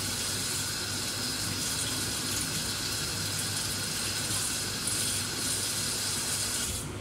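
Water running steadily from a kitchen tap, most likely rinsing asparagus, cut off suddenly just before the end.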